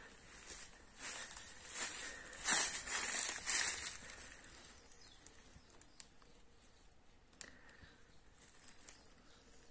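Dry fallen leaves rustling and crackling for a few seconds, then quiet apart from a single sharp click near the end.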